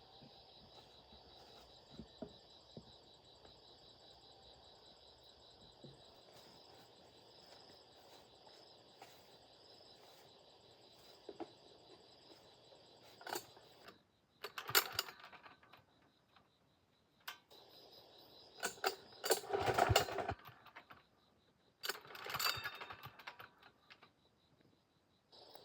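Insects chirring steadily in a high, fast-pulsing drone, with bursts of clattering and clinking from objects being handled, loudest about halfway through and near the end.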